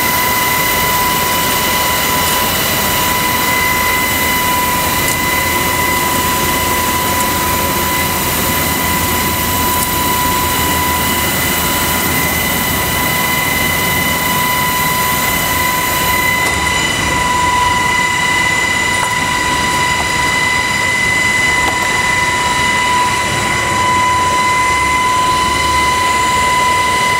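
UH-60 Black Hawk helicopter heard from inside the cabin with the door open: a loud, steady drone with a high, unchanging whine over it.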